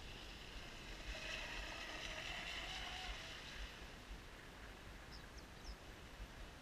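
Genesis RC boat's Leopard 4074 brushless motor whining as the boat runs, swelling about a second in and fading out after about three seconds as it passes.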